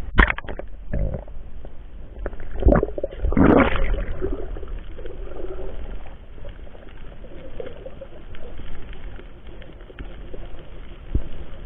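Muffled underwater sound from a camera in a waterproof housing: low gurgling, with a few dull knocks in the first four seconds.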